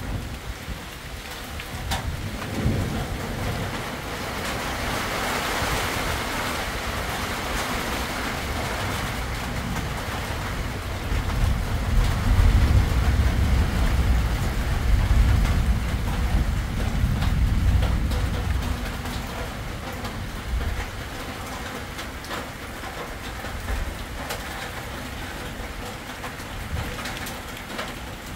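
Rainstorm with strong wind gusts rushing through the trees, a steady hiss of rain and leaves. A deep rumble swells in the middle and is loudest from about eleven to eighteen seconds in.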